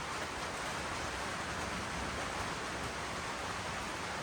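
Steady, even hiss with no distinct knocks or tool sounds.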